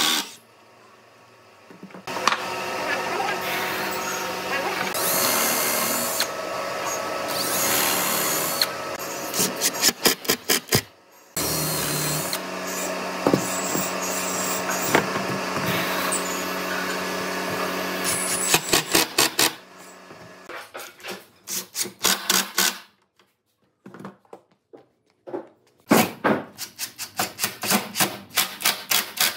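Cordless impact driver driving screws into wood: the motor runs with a steady whir, then breaks into runs of rapid clattering hammer blows as each screw tightens, several times with short pauses between.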